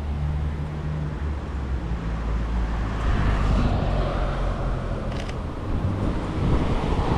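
Street traffic: a steady low engine hum with road noise swelling about halfway through as a vehicle passes, and a short click about five seconds in.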